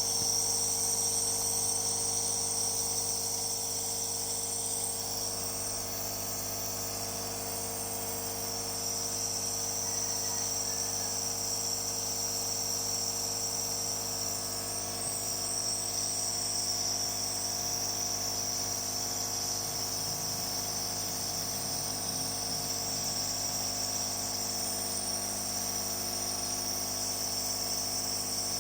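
Compressor nebulizer running steadily: a constant motor hum with a high whine over it.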